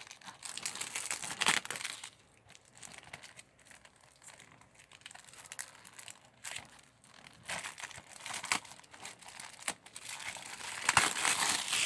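Plastic shrink-wrap on a DVD case crinkling and tearing as it is peeled off, in irregular bursts of crackle with scattered clicks, busiest at the start and again near the end.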